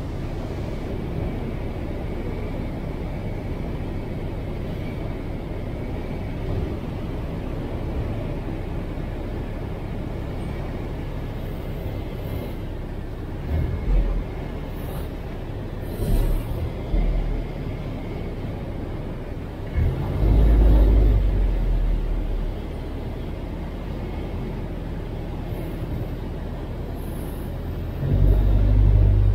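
Steady engine and propeller noise of a 1957 Piper Tri-Pacer light plane heard inside the cabin on a bumpy final approach. Several short low thumps come in the middle, and louder low rumbles come about twenty seconds in and again near the end.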